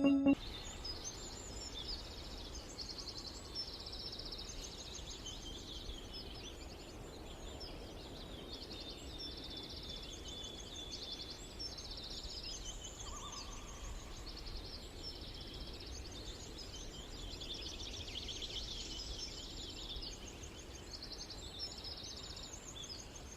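Wild birds chirping in short, rapid, high-pitched trills, repeated over and over, over a steady low background rumble and hiss.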